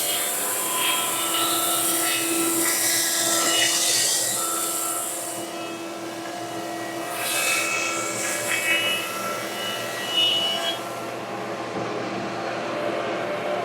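A 3-horsepower Grizzly thickness planer and a 240-volt dust collector running steadily, the planer cutting a rough walnut board with a loud hiss. The cutting hiss drops away about five and a half seconds in and returns briefly twice later.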